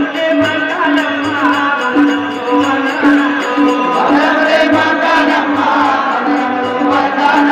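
A group of men singing a devotional opening prayer together in a chant-like folk style, over a steady repeating low beat of accompaniment.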